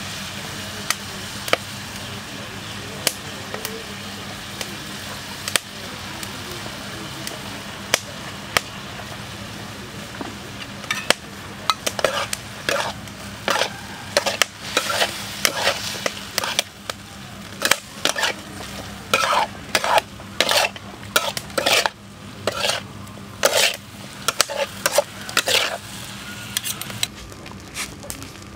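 Vegetables sizzling in a steel wok with occasional pops; from about eleven seconds in, a spatula scrapes and stirs against the wok in quick, repeated strokes as the vegetables are stir-fried.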